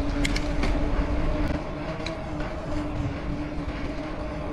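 Mountain bike rolling at speed over a paved street: a steady hum from the moving bike with a low wind rumble on the microphone and a few light rattles.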